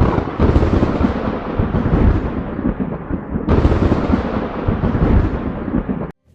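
Two loud claps of thunder, each a sudden crack trailing off into a deep rumble, the second about three and a half seconds in. The sound cuts off abruptly near the end.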